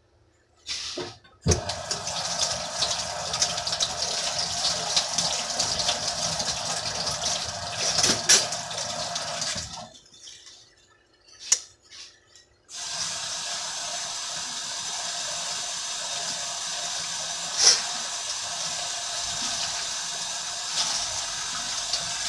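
Kitchen sink tap running in two long stretches, turned off for about three seconds in the middle and then on again. A few sharp clicks come through the running water.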